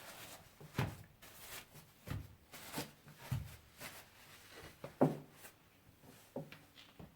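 A string of irregular light knocks and clicks from objects being handled and set down, about a dozen over several seconds.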